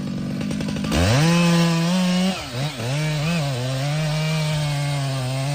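Chainsaw idling, then revved to full throttle about a second in; its pitch drops and wavers a little over a second later and stays lower, as the chain bogs under load cutting into the tree.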